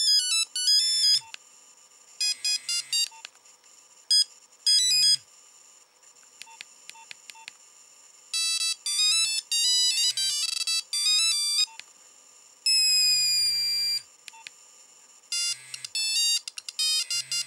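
Nokia 1100 mobile phone playing short snatches of simple one-note-at-a-time ringtone melodies through its ringer speaker, one tone after another with brief gaps between as they are scrolled through. The ringer is working again after a no-sound repair.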